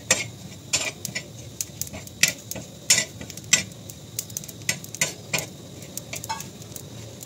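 Steel spoon scraping and clinking against an iron tawa as it stirs whole cumin seeds dry-roasting in the pan: irregular clinks and scrapes, a few each second.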